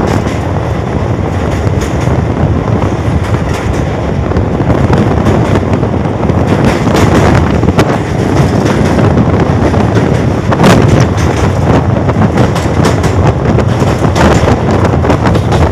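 Passenger train running at speed over a river bridge, heard from an open coach doorway: a loud, steady rumble of wheels on the rails, with sharp clacks from the rail joints in the second half.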